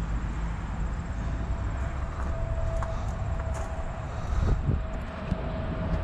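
Steady low outdoor rumble with a faint held tone in the second half and a few light knocks.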